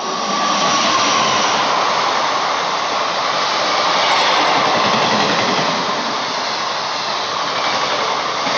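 Passenger coaches of an express train behind a WAP-4 electric locomotive rushing past at speed: a loud, steady rush of wheels on rail and moving air. The tail of the horn fades out in the first second.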